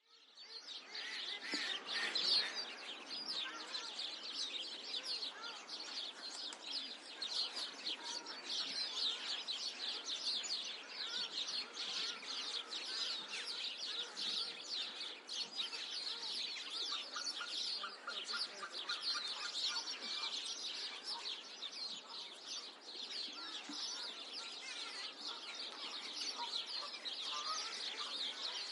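A flock of sparrows chirping continuously, many short calls overlapping into a dense twittering chatter, with a quick run of repeated lower notes partway through.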